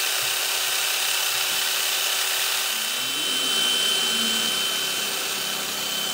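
A cordless drill spinning a small bit that grinds against a steel door strike plate: a steady whirring grind with a thin high whine. The bit is filing about an eighth of an inch off the plate's bottom edge, which sits too high for the door latch to catch.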